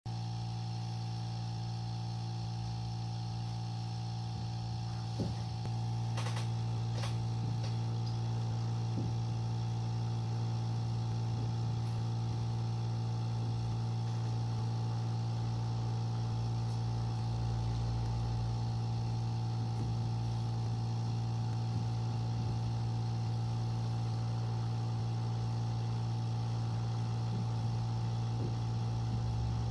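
A steady machine hum with a strong low tone and a higher steady whine, unchanging throughout, with a few faint clicks about five to seven seconds in.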